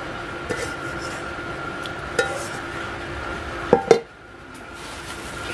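A hand moving through live river shrimp and small fish in a metal basin, with a few light clinks against the basin and a louder pair of knocks near the four-second mark. Steady heavy-rain noise runs underneath and drops away suddenly after the loud knocks.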